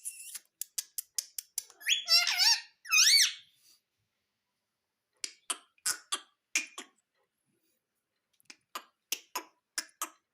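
Indian ringneck parrot giving two loud, wavering screechy calls about two seconds in, with runs of sharp clicks before and after them.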